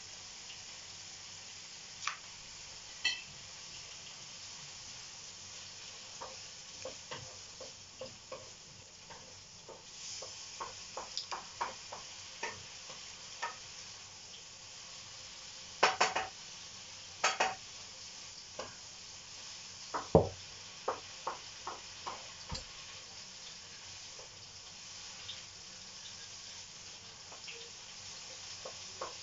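A kitchen knife clicking, tapping and scraping against a chorizo and a bamboo cutting board as the tough sausage skin is picked off, over a steady faint hiss. The clicks are irregular, with a sharper cluster about 16 and 17 seconds in and a single louder knock on the board about 20 seconds in.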